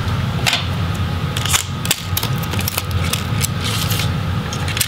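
Scattered light clicks and handling noises as a laptop speaker's thin wire and small plastic connector are unplugged and handled, over a steady low electrical hum.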